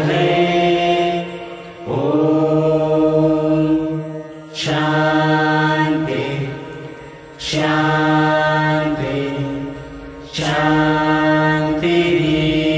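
Several voices chanting a prayer mantra together in long, held notes, each phrase starting again about every three seconds after a brief breath.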